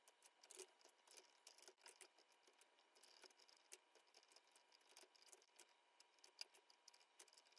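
Faint, irregular clicking of a computer keyboard and mouse, several clicks a second.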